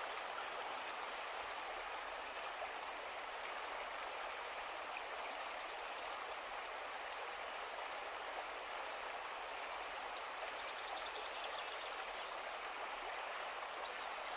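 Outdoor ambience: a steady hiss with faint, high-pitched chirps of small birds coming irregularly, about once a second.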